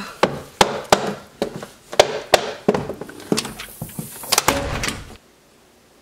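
A run of sharp knocks and thumps, roughly two a second and uneven, with a rougher scuffling stretch just before they stop abruptly about five seconds in.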